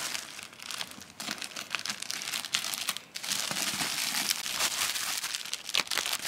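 Clear plastic packaging bag crinkling and rustling as it is handled and cut open with scissors, in a run of short crackles with a brief pause about halfway through.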